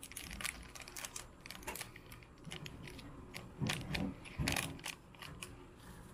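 A plastic Energen drink-powder sachet crinkling and crackling in the hands as it is torn open and its powder tipped into a cup: a scatter of small, quick crackles, with two fuller rustles about three and a half and four and a half seconds in.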